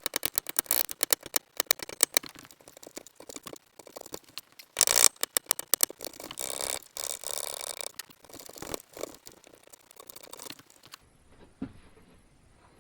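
Steel chisel stropped on a leather strap: a quick run of short clicking strokes, then a few longer scraping strokes.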